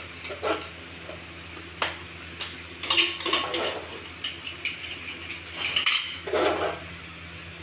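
Aluminium pressure cooker being opened: scattered metallic clicks, scrapes and clanks as the lid is twisted free and lifted off the pot rim, over a steady low hum.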